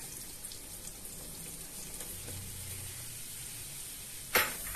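Melted butter and garlic sizzling gently in an aluminium wok as flour is poured in and stirred for a roux. A single sharp knock sounds near the end.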